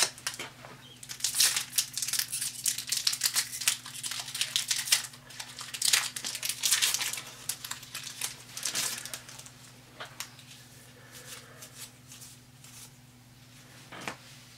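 Magic: The Gathering booster pack's foil wrapper crinkling and tearing as it is opened by hand, in repeated bursts through the first nine seconds or so. Quieter handling follows, with a soft click near the end.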